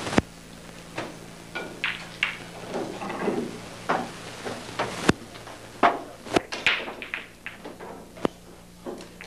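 A sharp click of pool balls striking just after the start, then scattered lighter clicks and knocks around the pool table.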